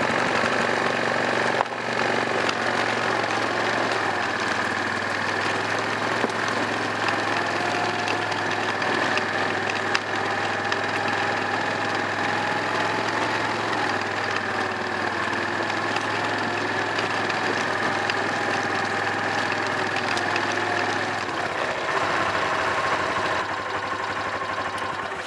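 Four-wheeler (ATV) engine running steadily with an even hum, its note shifting slightly near the end.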